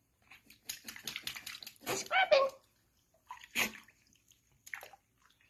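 Water splashing in short bursts in a bathroom sink as a capuchin monkey is bathed and scrubbed.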